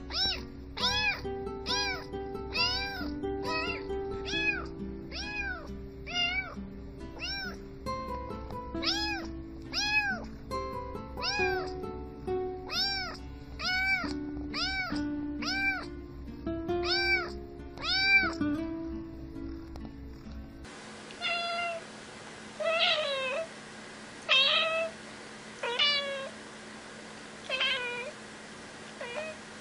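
Tabby kitten meowing in a quick, even string of short arched meows, about three every two seconds, over background music. About two-thirds of the way through, the sound cuts to a grey tabby cat giving about six slower meows, each falling in pitch, with no music.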